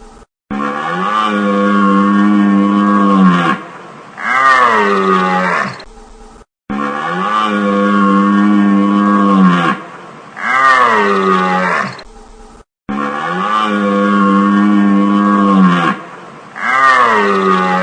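Deer calls in a repeating cycle: a long, steady call of about three seconds, then a shorter call that falls in pitch. The pair comes round three times, about every six seconds, with a short silence between rounds.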